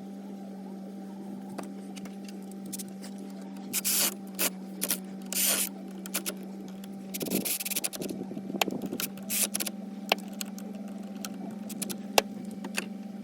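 Clicks, scrapes and a few short hissing bursts of hand work on engine parts, over a steady low hum.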